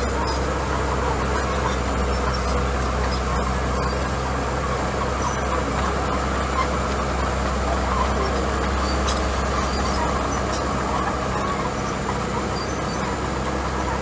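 Komatsu D41E crawler bulldozer's diesel engine running steadily as the dozer pushes gravel with its blade, a low, even drone that holds through.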